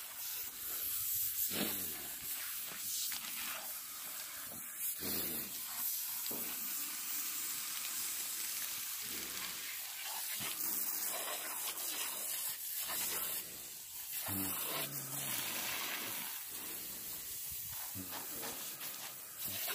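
Garden hose spray nozzle spraying water onto a skinned beef carcass and the ground: a steady hiss of spray with uneven splashing.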